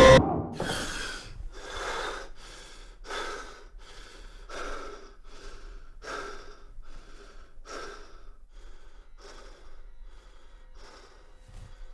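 Loud music cuts off abruptly, then a man breathes heavily and fast: a run of gasping breaths, about one every half second to second, that slowly grow quieter, like someone jolted awake and catching his breath.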